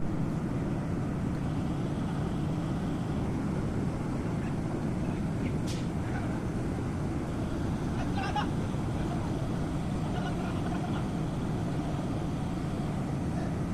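Diesel engine of a SANY 80-ton mobile crane running steadily during a lift, with a sharp click a little over five seconds in.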